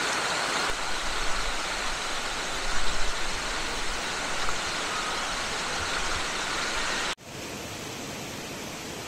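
Rushing river water over rocks, a steady loud noise, with a few low rumbles on the microphone a second or so in. About seven seconds in it cuts abruptly to the quieter, steady hiss of a portable gas camping stove burning.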